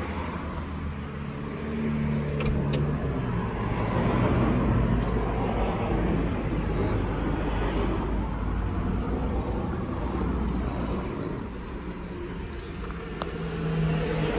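Road traffic on the street outside, a steady rumble that swells about two seconds in, eases off near the end and rises again, heard from inside a van's cab.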